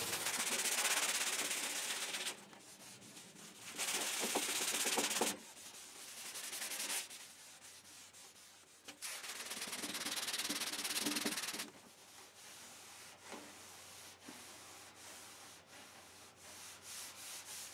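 A hand sanding block scrubbed back and forth over body filler on a steel car fender, in several runs of quick strokes with short pauses between. In the last few seconds come lighter, shorter rubs.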